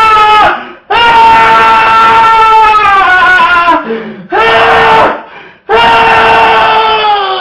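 A man's long, nasal, shrill 'eeeeh' shriek: the 'most annoying sound in the world' gag, repeated over and over. Each shriek is held for about one to three seconds at a steady pitch and sags in pitch as it breaks off, with short gaps between them.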